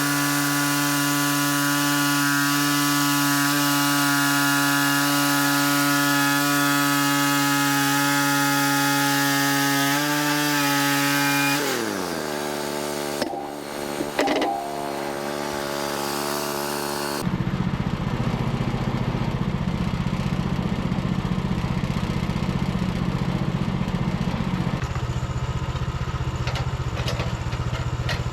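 Portable band sawmill's gas engine running steadily at full throttle with a high hiss over it, then throttling down about twelve seconds in and dropping in pitch. About two-thirds of the way through, a lower, rougher engine idle takes over abruptly.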